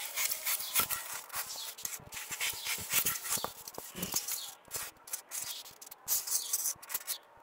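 Kitchen knife sawing and scraping through a block of styrofoam: an irregular run of short, scratchy strokes.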